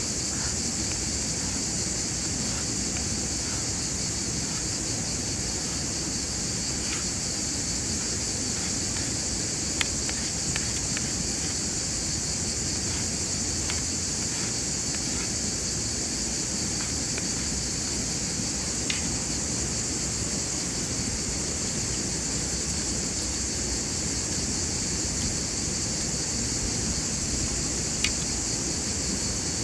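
Steady, high-pitched chorus of insects over a low outdoor rumble, with a few sharp clicks now and then.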